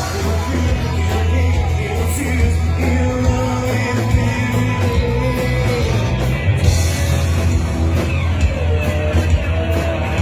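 A rock band playing an upbeat cover song, with drums, bass and a sung vocal line.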